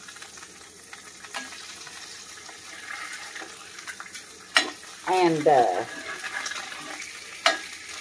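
Eggs frying in a pan with a steady faint sizzle, while a spatula scrapes and taps against the pan, with two sharp taps about four and a half and seven and a half seconds in.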